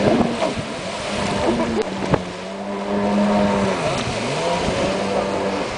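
Stand-up jet ski engine running at steady revs while it turns, its pitch dropping and climbing back about four seconds in as the throttle comes off and on again. A single sharp knock about two seconds in.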